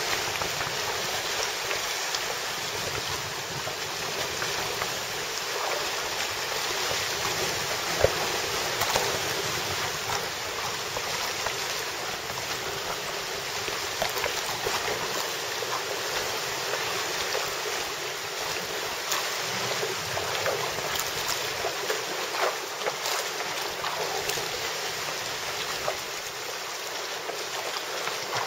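Sea water lapping and sloshing against rocks and a boat's hull: a steady wash with small splashes and drips here and there.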